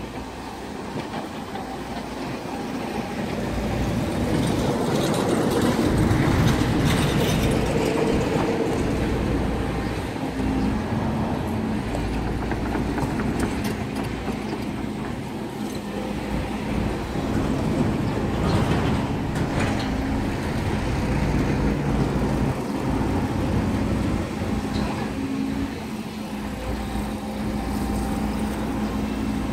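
Volvo long-reach excavator's diesel engine and hydraulics running steadily as the boom and bucket dig mud, a continuous rumble with a steady hum that grows louder a few seconds in.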